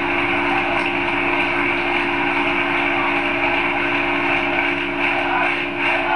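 Large stadium crowd cheering and applauding in a steady ovation for a departing player, with faint rhythmic claps near the end.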